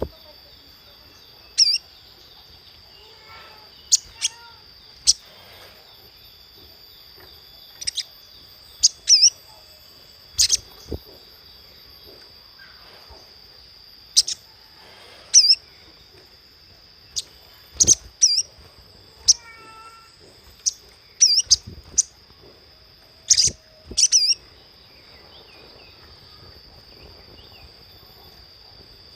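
Little spiderhunter giving short, sharp, high chip calls, singly or in quick runs of two or three, every second or few seconds. A steady high-pitched whine runs underneath.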